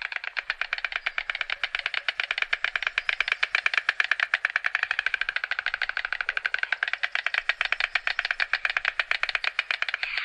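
White stork clattering its bill: a long, fast, even run of clicks, about a dozen a second. Bill-clattering is the adult white stork's main call, as it is almost voiceless.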